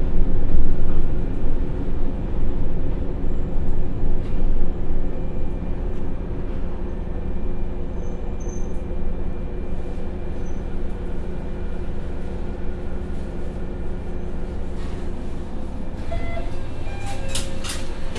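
Interior sound of an Akechi 100 diesel railcar, its Niigata DMF13HZ engine running steadily at low revs with a low wheel-and-rail rumble as the car slows to a crawl on arrival at a station. Near the end, a few short high tones and sharp clicks start.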